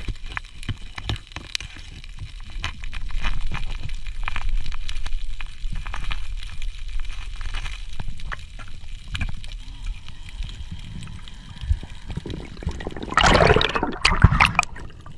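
Water heard through an underwater camera: a low rumble with scattered clicks, then a loud burst of splashing and gurgling about thirteen seconds in as the camera breaks the surface.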